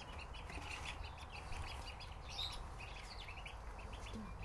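A downy young fowl peeping: a rapid, continuous run of short high-pitched peeps, several a second.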